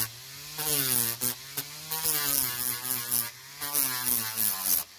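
Small power tool spinning a sanding disc against a plastic motorcycle fairing, sanding down the filled repair over a crack: a motor hum whose pitch sags and recovers as the pad is pressed on, with rasping sanding noise in repeated strokes. The tool cuts off just before the end.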